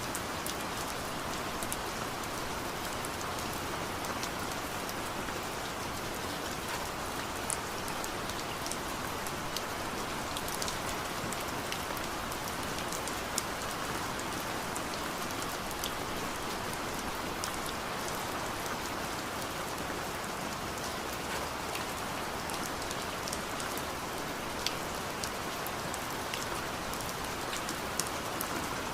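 Steady rainfall, an even hiss of rain with many individual drops ticking sharply on a hard surface.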